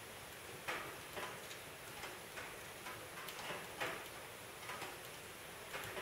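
Wood fire crackling in a Justus Faro Plus wood-burning stove: irregular sharp pops and snaps, several a second at times, over a faint steady hiss.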